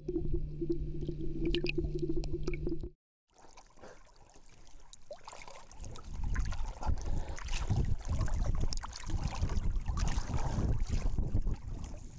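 For about three seconds, underwater audio: a steady low hum with scattered clicks. After a cut, surface sound of water sloshing against an inflatable boat and wind on the microphone, growing louder partway through, with occasional knocks.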